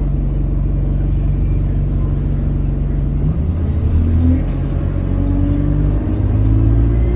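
Alexander Dennis Enviro200 bus's diesel engine running steadily, then pulling harder about three seconds in with its note rising. From about four and a half seconds a thin high turbocharger whistle rises steadily in pitch as the turbo spools up.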